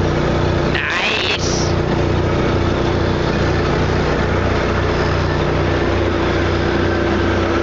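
Steady, loud drone of drilling-rig machinery at the shale shaker, with drilling mud pouring over the vibrating screens. A short rising squeal cuts in about a second in.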